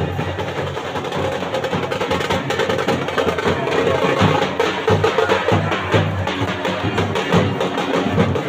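Dhol drums beating a fast, dense rhythm, with a shehnai playing along over the drumming.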